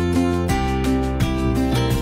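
Background music: a tune of plucked string notes, guitar-like, with a chord change about half a second in.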